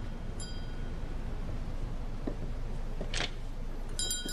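Light bell-like ringing notes, faint about half a second in and stronger near the end, over a steady low background rumble. There is a soft swish about three seconds in.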